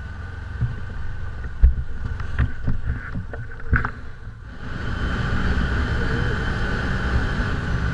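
Side-by-side UTV idling with a few sharp knocks and clicks, then, about halfway through, its engine running steadily and louder as it drives along a gravel trail.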